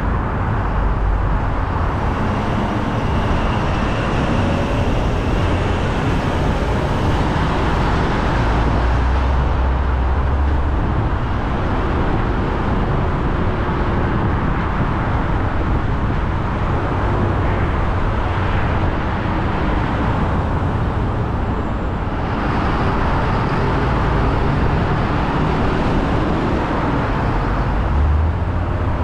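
Car driving on a road: steady tyre and engine noise with a low rumble.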